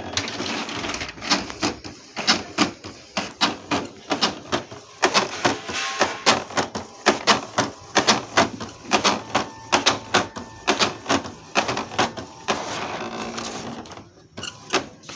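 Epson L-series inkjet printer mechanism clattering, with repeated sharp clacks about two or three a second that ease off near the end. This is the loud noise of a print head carriage that will not move.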